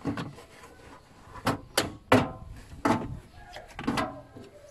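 Carpeted rear floor panel over a Toyota Prius hybrid battery being pulled up and lifted off its mounts and clips: a series of sharp knocks and plastic clatter.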